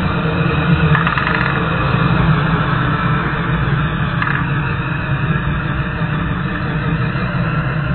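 Electric RC monster truck (Traxxas X-Maxx with a Castle 2028 brushless motor on 8S) drifting in circles, its motor running hard and its tyres spinning loose in dirt and gravel in a steady gritty rush. A few brief ticks come about one second and about four seconds in.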